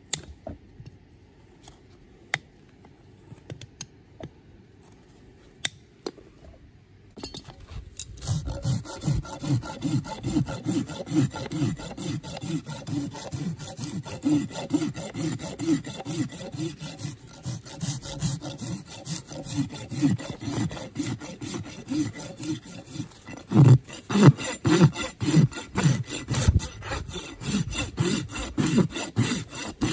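Hoof rasp filing down a horse's hoof wall in quick back-and-forth strokes, starting about eight seconds in and louder near the end. Before that, a few sharp clicks from hoof nippers.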